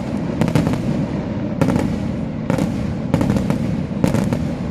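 Daytime aerial fireworks going off: clusters of sharp, loud bangs from shells bursting overhead, several every second, over a continuous low rumble of reports.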